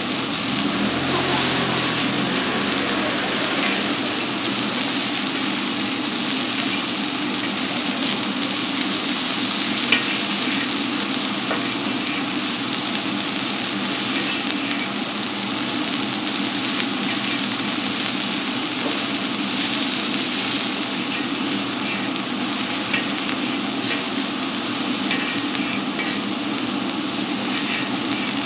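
Oyster blade steak sizzling steadily as it fries, with one sharp clink about ten seconds in.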